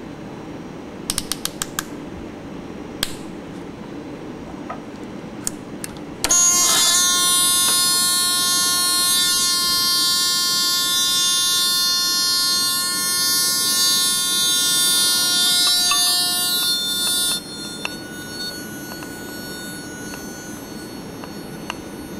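A few handling clicks, then a small electronic buzzer is switched on about six seconds in and gives a loud, steady, high-pitched tone with many overtones. After about eleven seconds it drops suddenly to a faint tone as it is sealed inside the bell jar.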